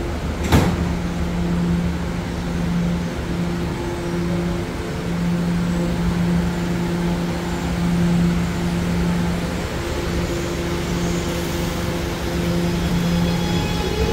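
R211A subway car with a steady, even hum and running noise, its pitch not changing, and a single sharp knock about half a second in.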